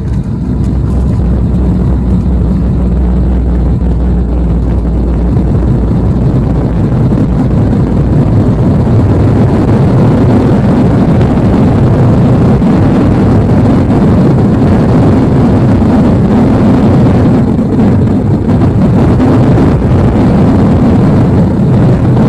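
Airliner noise heard on board: a loud, steady low rumble of engines and airflow that builds over the first several seconds and then holds.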